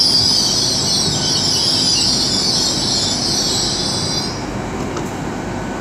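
Great Western Railway class 800 IET train running into the platform, a high squeal from its wheels and brakes over the low rumble of the train, dying away about four seconds in as it slows.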